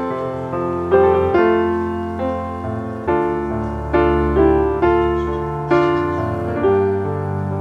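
Background piano music: a slow melody of struck notes, each fading after it is played.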